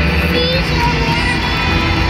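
Loud live band music at an arena concert, heard from the stands. A child's voice rises briefly over it about half a second in.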